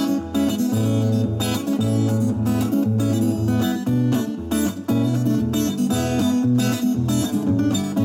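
Six-string acoustic guitar strummed in a steady rhythm, full chords over repeating bass notes.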